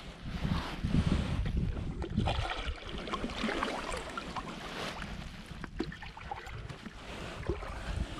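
Water splashing and lapping around a canoe, with small knocks and ticks. Wind buffets the microphone for the first couple of seconds.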